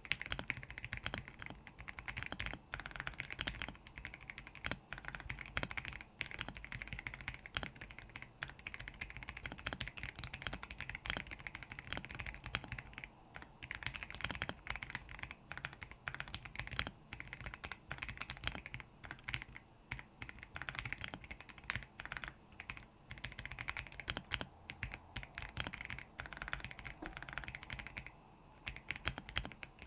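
Continuous two-handed typing on a Royal Kludge R75 mechanical keyboard fitted with lubed RK Brown tactile switches: a dense stream of keystroke clacks, with a few short lulls.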